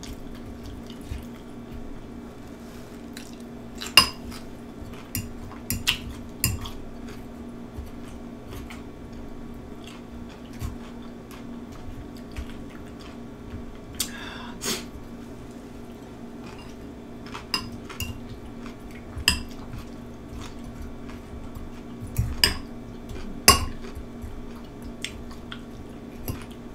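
Metal fork clinking and scraping against a glass bowl of cucumber slices in ranch dressing, in scattered, irregular sharp clinks, a few louder ones about four seconds in and again near the end.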